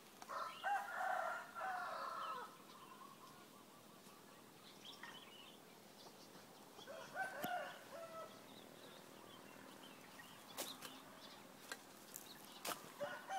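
A rooster crowing: one long crow of about two seconds near the start, then a shorter call about seven seconds in. A few sharp clicks follow near the end.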